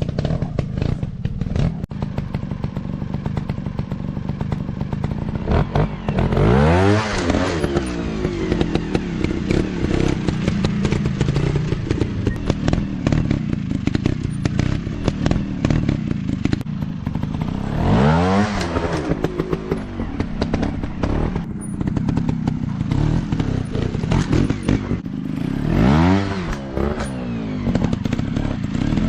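Trail motorcycle engine running with constant clatter and knocks, revving up three times.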